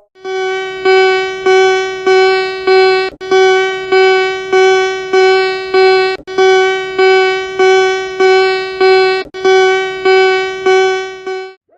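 Emergency alert alarm tone: one steady, buzzy pitched tone pulsing on and off about every 0.6 seconds, with a slightly longer break after every fifth pulse.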